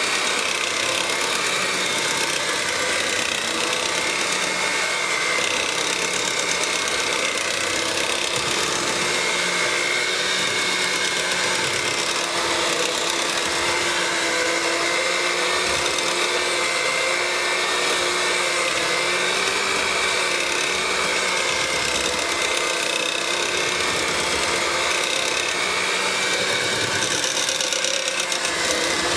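Handheld electric mixer running steadily, its beaters whipping thick cream soap paste; a steady motor whine that wavers slightly in pitch.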